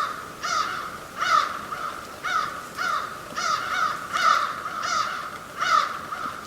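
A bird giving a long series of harsh, caw-like calls, roughly one and a half a second, over faint steady background hiss.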